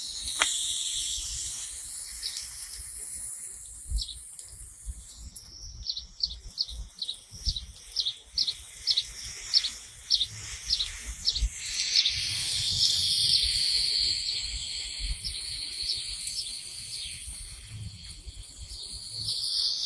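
A bird calling a run of short, high chirps, about three a second, for several seconds midway, over a steady high hiss.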